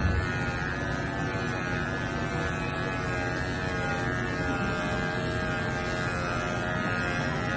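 Corded electric pet hair clippers running with a steady buzz as they shear through a dog's thick fur.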